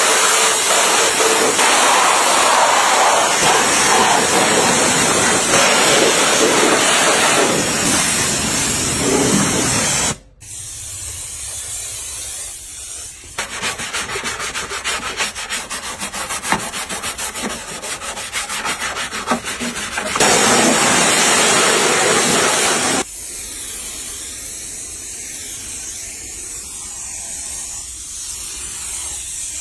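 Car-body restoration work in several edited cuts: a loud, steady rushing hiss for about ten seconds that stops abruptly, then fast, even, repeated scraping strokes like sanding, a brief return of the loud hiss, and quieter rubbing near the end.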